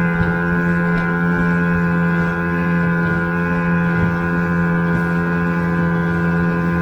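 A small 2-hp outboard motor on a mini boat running steadily at constant throttle, a droning hum.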